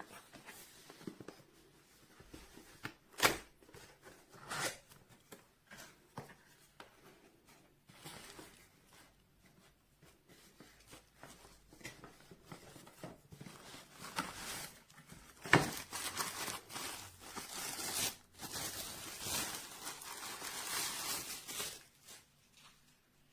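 Packaging being handled and torn open: irregular rustling, crinkling and tearing, with a few sharp knocks, and a denser stretch of rustling near the end.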